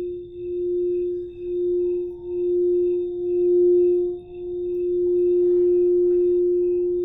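Singing bowl played for the heart chakra, holding one sustained tone that swells and dips about once a second, then evens out into a smooth, steady ring about four seconds in.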